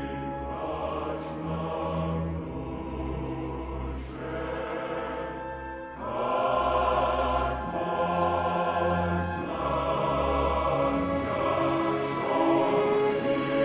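Soundtrack music with choir-like singing over sustained low notes, growing louder about six seconds in.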